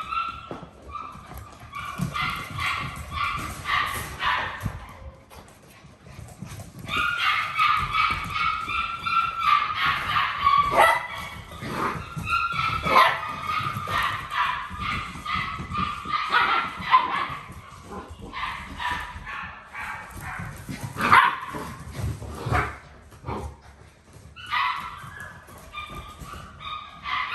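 Seven-week-old poodle puppies yipping and whimpering in long runs of short, high-pitched calls, with a few sharp knocks in between.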